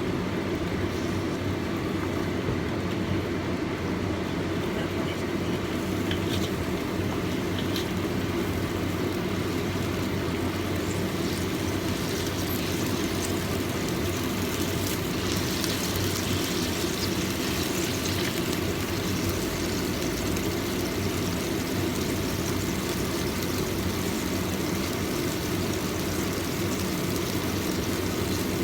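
Steady machine hum of a running fan, with a few faint light clicks near the start.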